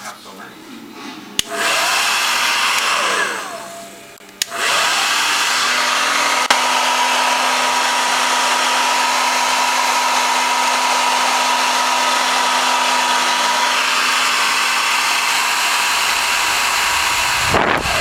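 T3 Featherweight ionic hair dryer switched on with a click and blowing for a couple of seconds, then spinning down with a falling whine. It is switched on again with a click and blows steadily for about thirteen seconds before winding down once more near the end.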